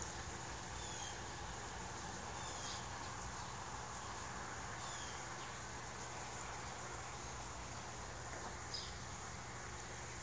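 Quiet outdoor background: a steady low hum and a thin, steady high hiss, with faint, short, high chirps every second or two. The clearest chirp comes near the end.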